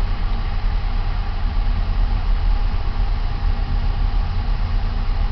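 1966 Ford Ranchero engine idling low with the original air-conditioning compressor engaged, a steady low rumble. The owner takes the compressor's growl for a sign that its clutch or bearings are worn.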